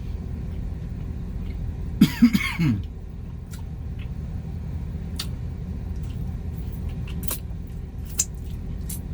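Steady low rumble of a vehicle inside the cab, with a man giving a short cough about two seconds in, followed by scattered small clicks.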